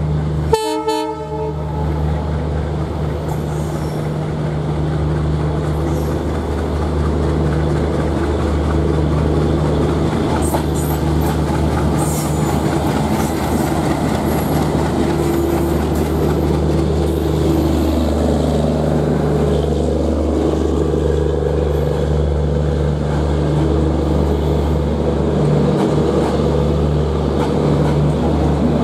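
WDM3D ALCO diesel locomotive sounding its horn once, briefly, near the start, then its 16-cylinder ALCO 251 engine running with a steady low drone over the noise of the moving train on the rails.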